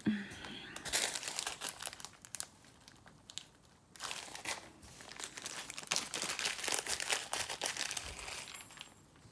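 Small plastic zip-lock bag of jump rings crinkling as it is handled and opened, in two spells with a short pause about three seconds in.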